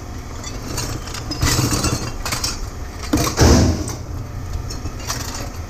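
Scrap metal being handled at a scrap yard: irregular scraping and knocking of metal pieces, the loudest scrape a little over three seconds in, over a steady low engine hum.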